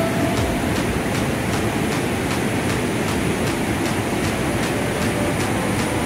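Steady rush of river water pouring over rock rapids and a small waterfall.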